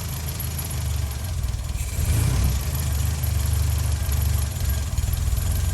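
Classic Mini's A-series four-cylinder engine idling, a steady low running note that wavers slightly in level. It is running cold and wants the choke.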